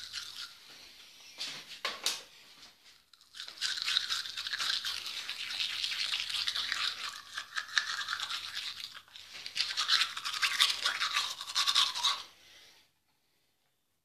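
A manual toothbrush scrubbing teeth with quick back-and-forth strokes, the bristles rasping wetly. A few short strokes come first, then steady brushing from a few seconds in, with a brief let-up about two-thirds of the way through. It stops a couple of seconds before the end.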